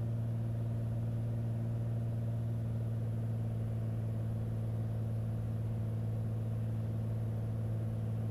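Single-engine Beechcraft A36 Bonanza's six-cylinder piston engine and propeller droning steadily, heard from inside the cabin, on final approach with the propeller control set full forward.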